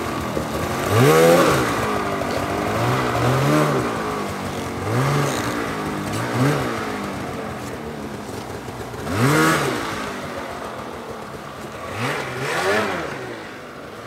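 Snowmobile engine revved in short repeated bursts, the pitch rising and falling each time, as the rider works the crashed sled out of deep snow between trees.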